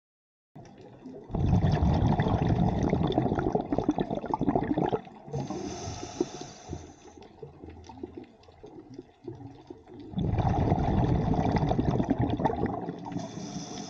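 Scuba diver breathing through a regulator underwater: two long rushes of exhaled bubbles, each followed by a quieter stretch with a short high hiss of inhalation.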